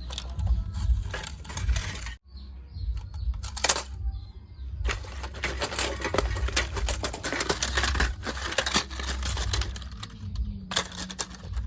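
Rapid, irregular clicking and clattering of small hard objects over a low rumble, with a few brief breaks.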